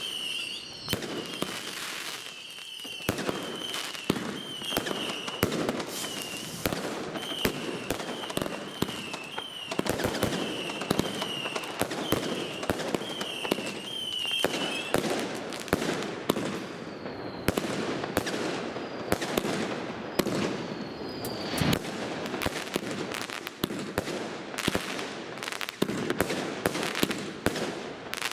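Firework batteries firing in rapid succession: sharp launch pops and crackling bursts, several a second. A wavering high whistle repeats through the first half, and short falling whistles come later.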